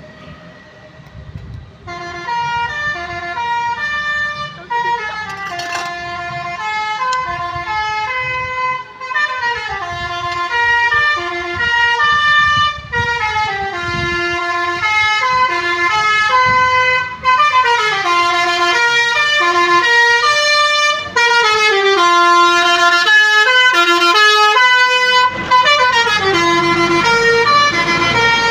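Bus's Basuri telolet horn, a multi-tone horn, playing a quick tune of changing notes. It starts about two seconds in and keeps going without a break.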